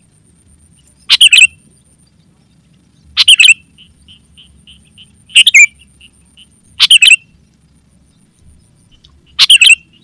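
Sooty-headed bulbul (kutilang) giving five loud, short bubbling calls, spaced about two seconds apart, with softer short chirps in between.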